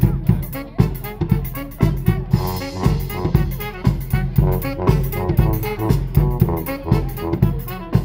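Live brass marching band playing: sousaphone bass line and horns over a bass drum keeping a steady beat.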